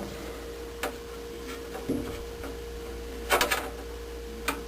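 A few small clicks and taps from handling the furnace pressure-switch tubing and parts, with a cluster about three and a half seconds in, over a steady hum.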